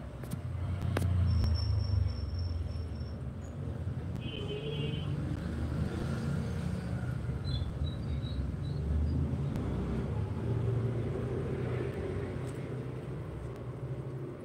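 A low, uneven rumble that swells over the first couple of seconds and carries on, with a few faint short high-pitched tones over it.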